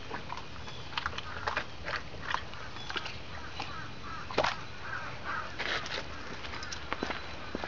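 A dog chewing and mouthing a soft, ripe papaya: irregular wet smacking and clicking of its jaws, several a second.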